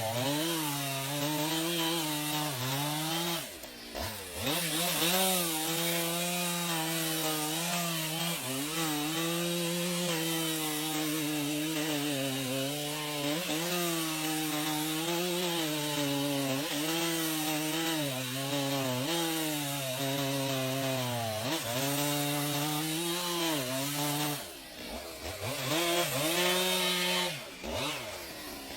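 Chainsaw cutting wood at high revs, its engine pitch sagging and recovering again and again as the chain bites into the wood. The engine briefly drops away about four seconds in and again near the end.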